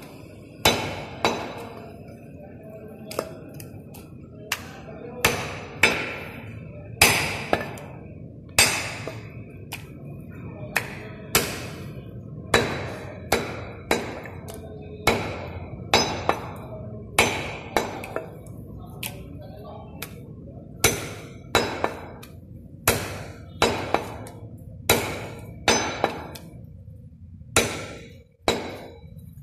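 Large curved butcher's cleaver chopping goat leg meat and bone on a wooden chopping block: sharp chops about once a second, each with a short metallic ring.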